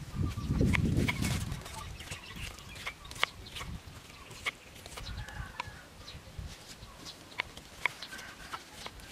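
Knife clicking sharply against a wooden chopping board as small tomatoes are sliced, a cut every second or so, with chickens clucking in the background. A low rumble fills the first two seconds.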